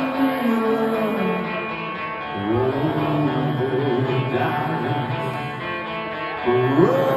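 Live rock band playing: an electric guitar riff with sliding notes over a steady bass line.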